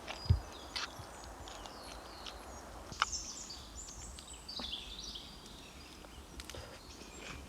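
Small birds chirping and calling in woodland. There is a dull thump near the start and a sharp click about three seconds in.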